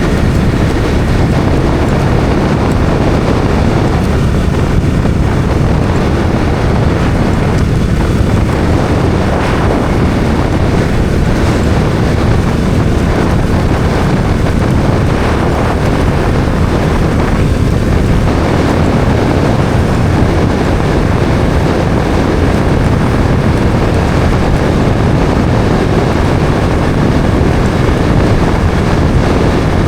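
Bajaj Dominar 400's single-cylinder engine running steadily while the motorcycle is ridden, with wind rushing over the microphone.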